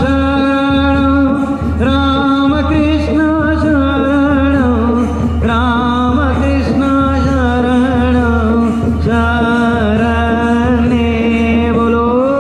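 Kirtan: voices singing a devotional chant together over steady, sustained accompaniment, the melody gliding between held notes.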